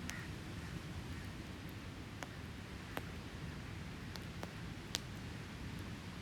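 Wood campfire crackling, with a handful of sharp pops scattered through, the loudest just before five seconds in, over a steady low rush of ocean waves.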